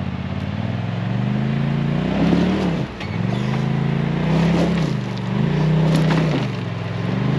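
Polaris RZR side-by-side engine revving hard in about three surges, its pitch rising and falling, as the vehicle tries to climb off a rock and stump it is hung up on, tyres spinning in the dirt.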